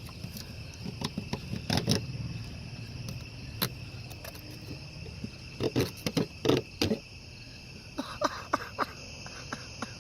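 Crickets chirping steadily, with irregular scrapes and sharp clicks from working a cheap multitool's dull blade by hand, loudest in a cluster a little past the middle.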